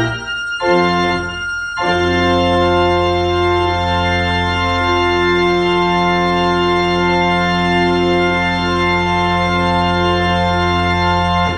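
Church pipe organ playing loud sustained chords over a steady low bass note. A short break and chord about a second in leads into one long held closing chord with inner notes shifting, released right at the end.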